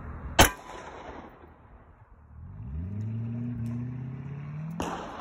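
A single 9mm Glock 19 pistol shot, a sharp crack under half a second in. From about halfway through, a motor's hum rises in pitch and then holds steady, and a softer knock comes near the end.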